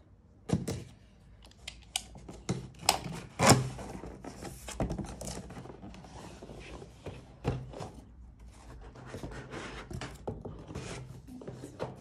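Cardboard packaging being handled: the outer box is pulled open and slid off the inner box, with scraping and rubbing of cardboard on cardboard and many knocks and thumps, the loudest about three and a half seconds in.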